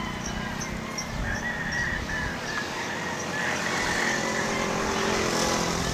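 Motor-vehicle traffic running steadily on a nearby road, with a faint high ticking about two and a half times a second that fades after a couple of seconds.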